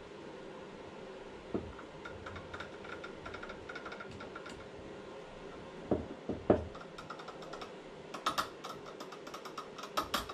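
Light clicks, taps and knocks of hand work on an RC car's motor mount, driving in the mount screws on the brushless motor while setting the pinion-to-spur gear mesh. Three louder knocks come about six seconds in, and quick runs of small clicks follow near the end.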